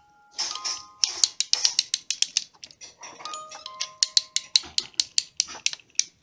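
Background music: a quick beat of crisp ticking percussion with bell-like chime notes held over it, starting after a brief silent moment.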